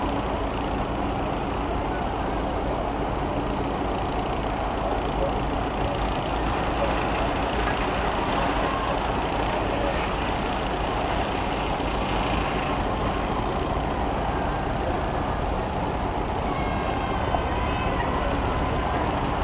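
School bus engines running steadily as the buses line up, a continuous, even vehicle din.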